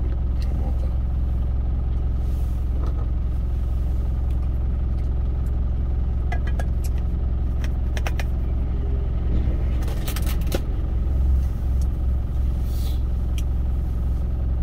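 Truck engine idling with a steady low rumble, heard inside the cab, with a few light clicks of chopsticks against a stainless-steel bowl about halfway through and again a little later.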